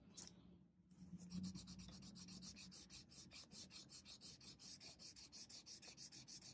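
Pencil-top rubber eraser rubbed quickly back and forth on sketchbook paper, lifting pencil lines from an ink drawing: a faint, even run of short scratchy strokes, several a second, starting about a second in.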